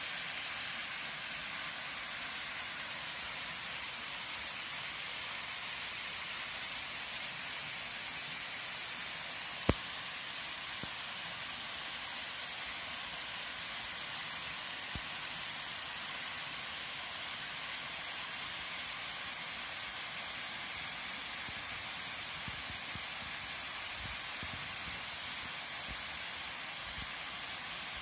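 Steady, even hiss of a thin waterfall splashing into a pool. One sharp click sounds about ten seconds in.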